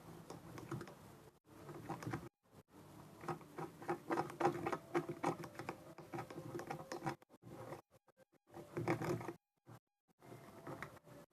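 Slime mixed with water being stirred in a container with a stirrer: a busy run of small wet clicks and squelches, broken by a few short pauses.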